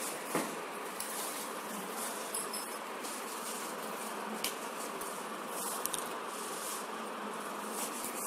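Steady hissing background noise with a few faint, short clicks.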